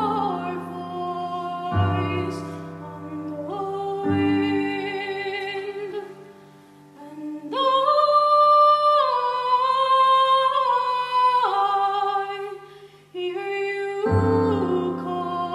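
Women's choir singing held, sustained notes with piano accompaniment, low piano notes coming in every couple of seconds. About halfway through the choir rises to higher, louder held notes for several seconds, then drops back.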